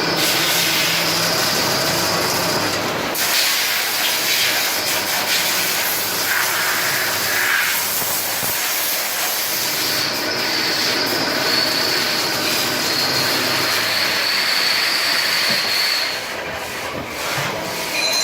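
Machine tool cutting metal: a steady hissing noise with a thin, high whine that sounds for the first few seconds and again through the middle of the stretch.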